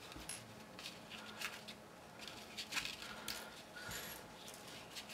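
Faint handling of paper and cardstock: scattered light clicks and rustles as metal brads are pushed through holes in the paper.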